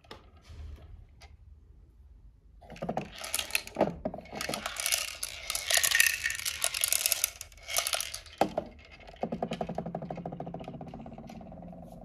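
Hard plastic toy parts clattering and rattling as a toy robot is handled and turned over, with a busy stretch of clicks in the middle. A steady buzzing hum runs through the last few seconds.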